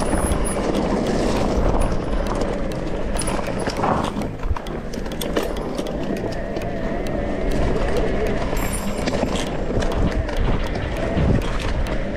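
Mountain bike rolling over a rough dirt trail: crunching tyre noise with many sharp clicks and rattles from the bike, under a low wind rumble on the microphone.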